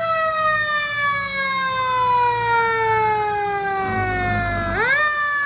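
A vehicle siren wailing: one long tone falling slowly in pitch for about four and a half seconds, then sweeping sharply back up near the end, over a low engine rumble.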